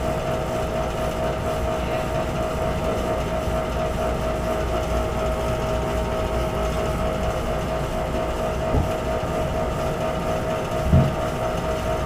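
Steady drone of boiler-room machinery: a constant hum with a held mid-pitched tone over a low rumble. A brief low thump comes about eleven seconds in.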